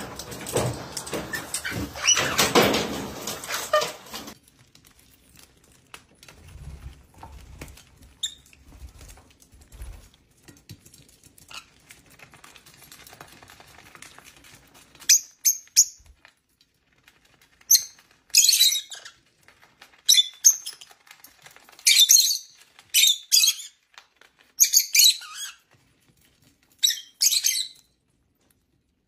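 Lovebirds giving shrill chirping calls in short bursts, about nine of them through the second half. This follows a few seconds of rustling noise at the start.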